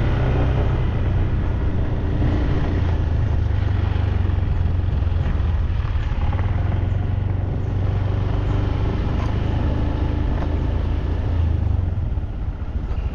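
Motorbike engine running steadily at low road speed on a dirt track, with small knocks from the rough ground here and there and a brief ease-off near the end.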